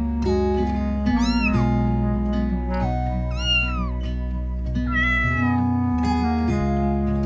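Background music with sustained notes and a steady bass line. Three cat meows sound over it, each rising and then falling in pitch, about a second and a half, three and a half, and five seconds in.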